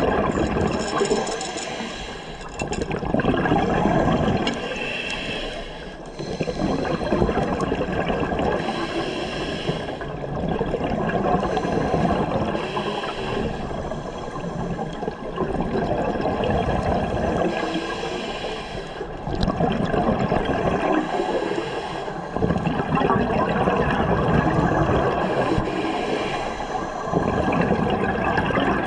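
Scuba regulator breathing heard underwater: a hiss on each inhalation and a rush of exhaled bubbles, swelling and fading in a slow cycle of about four seconds.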